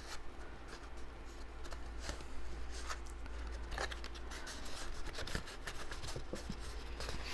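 Cardstock being handled and folded by hand: scattered rustles, slides and light taps of paper over a steady low hum.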